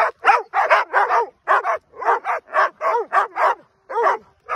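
A dog barking rapidly and repeatedly, about four short barks a second, each bark rising then falling in pitch.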